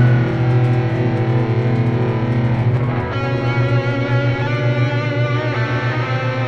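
Electric pedal steel guitar played through distortion and effects: a dense, sustained drone of chords over a fast-pulsing low note, with a cluster of higher ringing notes entering about three seconds in.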